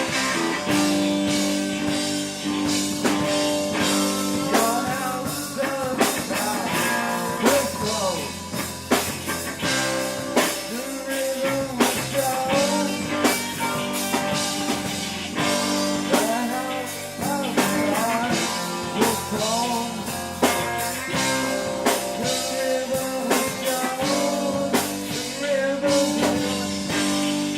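Live rock band playing an instrumental section: drums keeping a steady beat under bass and guitars, with a lead line that bends up and down in pitch.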